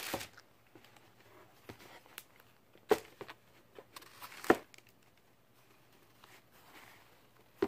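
Sneakers being handled: a few sharp knocks, the loudest about three and four and a half seconds in, among faint rustles and light ticks.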